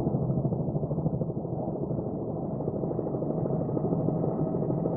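Steady drone of a helicopter's engine and rotor, heard from on board.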